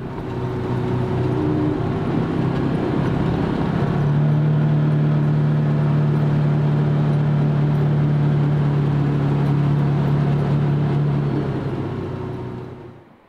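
Side-by-side UTV engine running at a steady speed while driving, heard from on board as a steady low drone over road noise. It fades out near the end.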